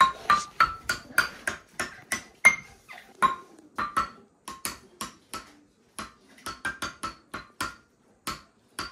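Toy wooden xylophone struck with a marker pen, about four short ringing notes a second at changing pitches, playing a tune, with a brief pause a little past halfway.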